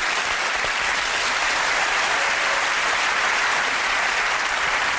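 Studio audience applauding, a steady wash of clapping throughout.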